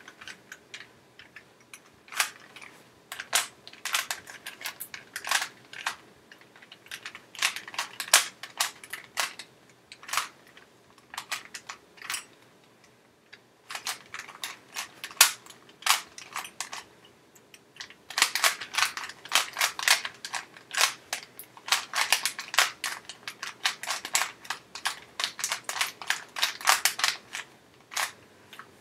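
A Rubik's Cube being turned quickly by hand: its plastic layers clicking and clacking in irregular runs of rapid turns, with brief pauses, and the fastest, densest run of turns in the second half.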